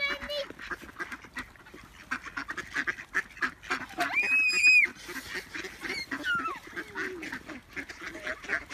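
A flock of mallard ducks quacking busily, many short calls overlapping. About four seconds in, a single high, drawn-out squeal lasting just under a second stands out as the loudest sound.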